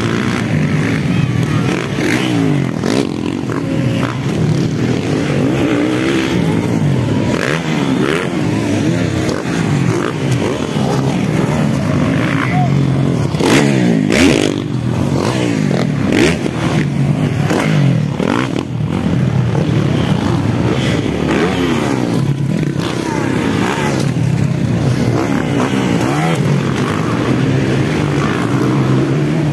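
Several motocross bikes' engines revving up and down as they race around the dirt track, their pitches rising and falling over one another without a break. It is loudest around the middle, as bikes come close.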